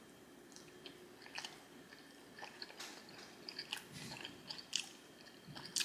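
A person biting into and chewing a mouthful of saucy Hunan shrimp and broccoli, with faint wet smacking clicks that become busier from about a second and a half in.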